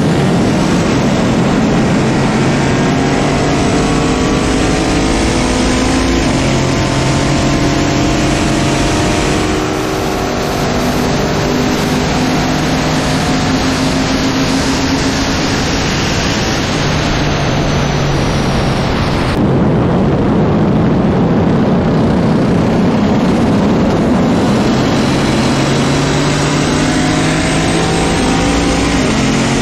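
Engines at full throttle in a high-speed acceleration run, with heavy wind rush on an outside-mounted microphone. The engine note climbs in pitch through several gear changes, then drops off suddenly about two-thirds of the way in as the throttle is lifted and the cars slow down.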